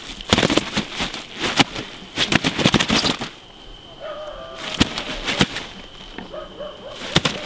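Grass carp thrashing on a padded carp cradle inside the landing net: four bouts of sharp wet slaps and rattles, the last one short, with quieter spells between them.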